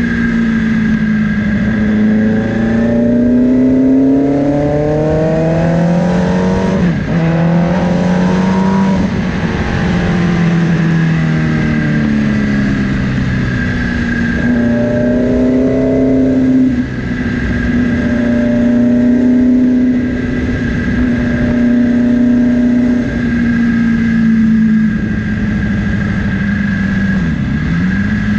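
Aurora Hellfire OZ26's 2575cc liquid-cooled DOHC V8 engine heard from on board while riding: it revs up over the first several seconds with a sudden drop in pitch about seven seconds in, eases off, pulls up again, then holds a steady cruise with a brief dip near the end. A steady high whine runs alongside.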